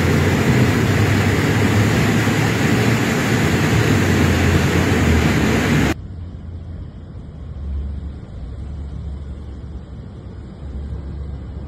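Roar of a muddy flash-flood torrent surging down a street. About six seconds in it cuts abruptly to a quieter, deeper rumble of the rushing floodwater.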